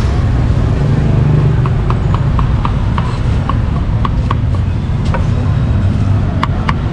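Meat cleaver chopping grilled braised pork on a chopping board: quick, even knocks about three or four a second, starting about a second and a half in, pausing, then resuming near the end. A steady low rumble of street traffic runs underneath.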